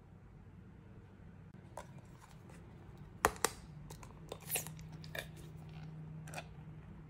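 Small metal pull-tab can of wet cat food being worked open by hand: a series of sharp metallic clicks and crackles, the loudest a little over three seconds in, with a denser crackle about a second later.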